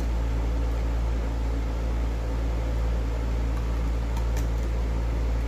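Large electric fan running steadily: an even whoosh of air over a low motor hum.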